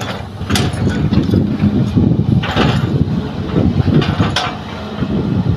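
Hitachi hydraulic excavator's diesel engine working under load as it swings and digs, a steady rough rumble. Three short, sharp noisy bursts come through it, about half a second, two and a half seconds and four and a half seconds in.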